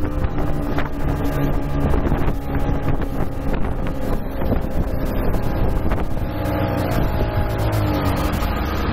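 Fastboat's twin outboard motors running under way, with rushing wind on the microphone and water noise. The engine note falls over the last few seconds as the throttle comes back.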